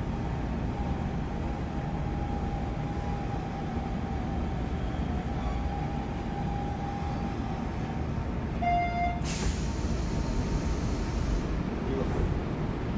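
Hanshin 8000 series electric train running, a steady rumble of wheels on rail with a faint whine that slowly falls in pitch. Near the middle a brief pitched tone sounds, followed by about two seconds of hiss.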